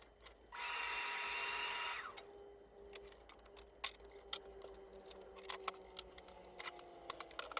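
Makita track saw running briefly, for about a second and a half, then a faint hum as the blade winds down. Scattered light clicks and knocks of wood and tool handling follow.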